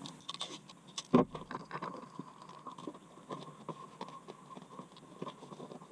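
Orange adhesive tape being pulled off the roll and pressed down by hand over an opening in a car's body panel: a run of small crackles, clicks and rubbing, with one louder sharp click about a second in.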